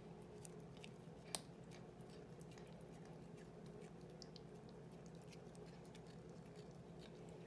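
Near silence with faint, scattered clicks of a cat chewing on a feather wand toy, and one sharper click about a second and a half in.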